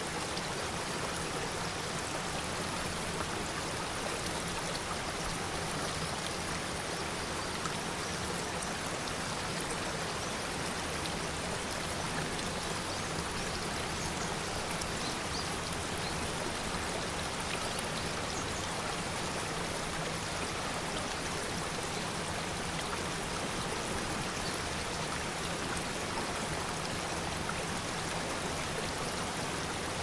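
Rocky mountain waterfall: water falling and splashing over rocks in a steady, even rush with no change in level.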